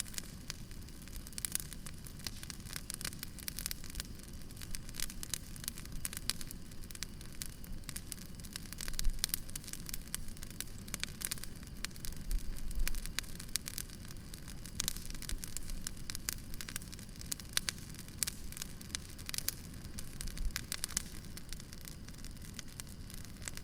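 Wood fire burning, crackling and popping irregularly over a low steady rumble, with a louder pop about nine seconds in.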